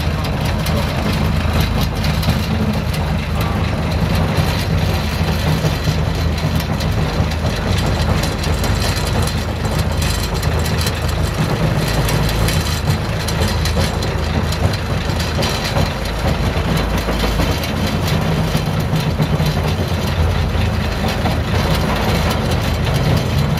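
Old narrow-gauge forestry-railway diesel locomotive engine idling steadily, heard close up from its hood, with a deep, even hum. The old engine is warming up.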